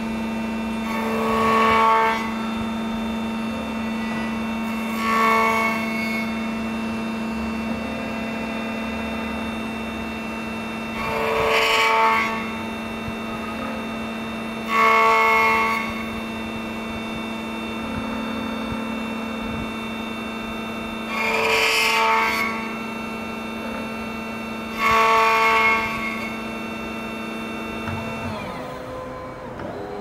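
A Beta key-cutting machine cutting an FO21 Tibbe key: its spindle motor hums steadily. Six times, in pairs, it grows louder for about a second as the cutter bites into the key. Near the end the motor winds down and stops.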